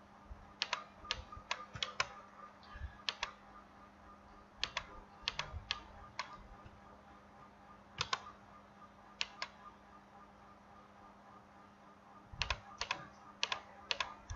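Scattered sharp clicks from a computer mouse and keyboard, coming in small clusters and pairs with pauses between, over a faint steady hum.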